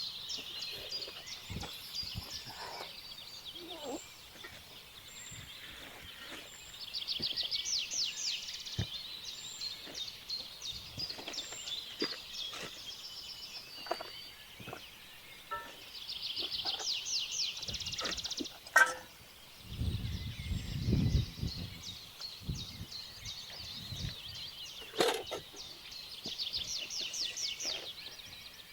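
Birds calling outdoors: a rapid, high trill of many fast notes comes three times, each lasting about two seconds, with scattered chirps and small clicks between. A low rumble comes in about two-thirds through.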